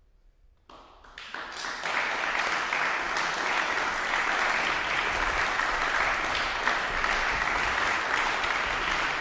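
Audience applauding at the close of a performance: it breaks out of silence just under a second in, swells over about a second, then continues as steady clapping.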